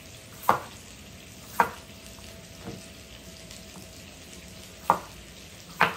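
Kitchen knife chopping small red fingerling potatoes on a bamboo cutting board, the blade knocking sharply on the board five times at uneven gaps of about a second. Under it, a steady sizzle of chicken thighs frying in a cast iron skillet.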